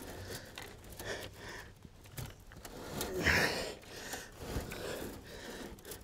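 A man breathing hard with effort as he wrestles a heavy 100-pound coil of baling wire, loudest about three seconds in, with light clicks and scrapes from the wire.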